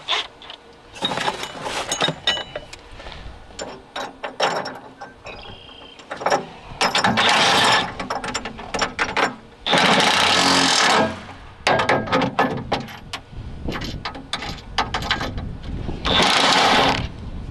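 DeWalt cordless impact driver running bolts into a steel loader bucket in three bursts of about a second each, with clinks and knocks of hardware being handled between them.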